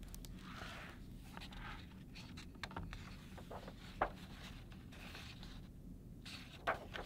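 Hands opening a hardcover picture book and turning its pages on a table: paper and card rubbing and sliding, with a few sharp taps as the cover and pages come down, the loudest about four seconds in and again near the end.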